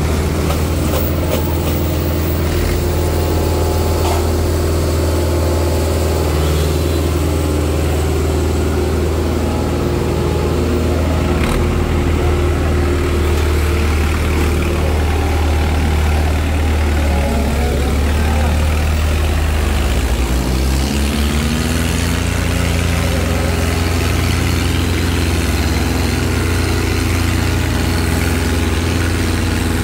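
Diesel tractor engine running loud and steady. About twenty seconds in its note dips, then revs back up with the pitch rising.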